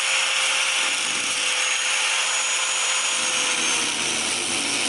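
Angle grinder with a cut-off wheel cutting through a donor motorcycle frame to remove the headstock. It runs as a steady, high grinding noise, its motor whine dropping slightly about three to four seconds in as it loads up.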